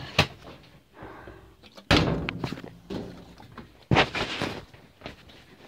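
Heavy thuds, a big one about two seconds in and another about two seconds later, each ringing on briefly, after a smaller knock at the start.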